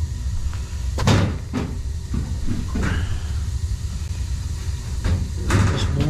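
Steady low rumble of a Burnham gas boiler firing, with several clunks and knocks from handling; the loudest comes about a second in and another cluster comes near the end.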